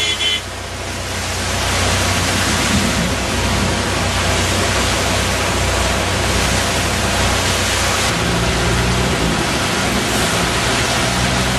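Fast-flowing floodwater rushing and spilling over a concrete barrier, a loud, steady rush of water. A vehicle engine hums low underneath, more clearly from about eight seconds in.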